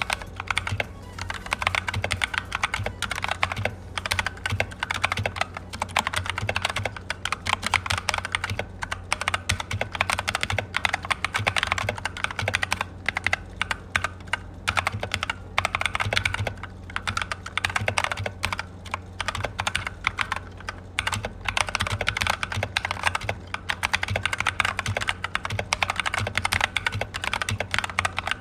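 Typing on an Akko 3068 Silent mechanical keyboard: a steady run of quick, irregular keystroke clicks as text is typed.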